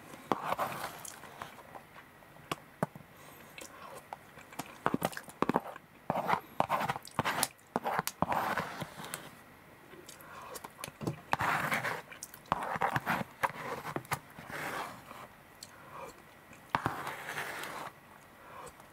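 Eating sounds: a metal spoon clicking and scraping against a black plastic takeaway tray as the last of the curry and rice is scooped up, with chewing in between.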